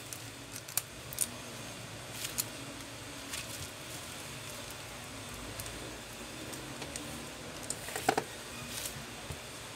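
Scattered light clicks and taps of a disassembled Realme C11 smartphone's plastic frame and parts being handled and set down, with the loudest cluster of clicks about eight seconds in, over a steady low background hum.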